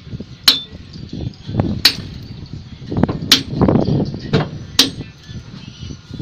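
Hand hammer striking a steel chisel held against a precast concrete pile: four sharp metallic blows, about a second and a half apart, chipping away the concrete to cut through the pile. Duller knocks come between the blows.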